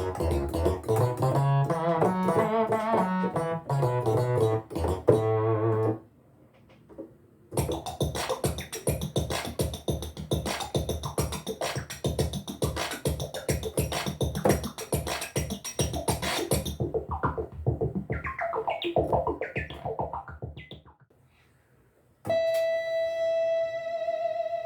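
Software synthesizer presets of vintage 1980s-style keyboard sounds played on a keyboard, several different sounds in turn with short pauses between them. One passage is a fast, even run of repeated notes, and a bright sustained note is held near the end.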